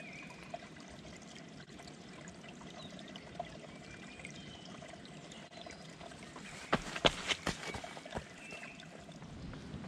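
Shallow woodland stream trickling steadily over stones. A handful of sharp clicks come about seven seconds in and are the loudest sounds, with a few faint high chirps over the water.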